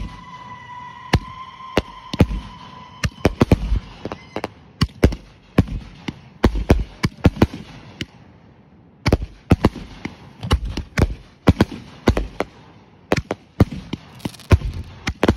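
A 50-shot consumer fireworks cake firing: a rapid, irregular string of sharp bangs and low thuds as shells launch and burst overhead. A whistling tone falls slightly in pitch and fades out about three seconds in. There is a short lull about eight seconds in before the barrage picks up again.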